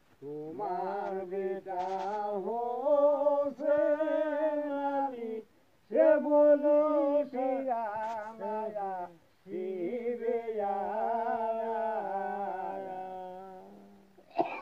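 A man singing a Bengali dhua folk song alone, without accompaniment: long, ornamented held notes in three phrases with short breaths between, the last one fading out near the end.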